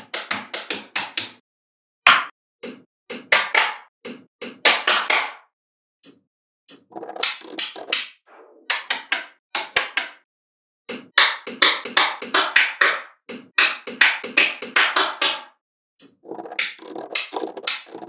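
Small magnetic balls clicking and snapping against each other in quick clusters of sharp clicks, broken by short gaps of silence.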